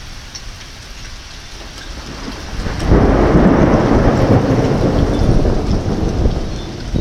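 Steady heavy rain, then about three seconds in a loud thunderclap breaks and rumbles on for several seconds.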